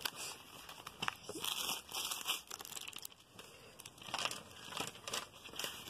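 Glossy paper catalogue pages rustling and crinkling as they are handled and turned, in irregular short rustles.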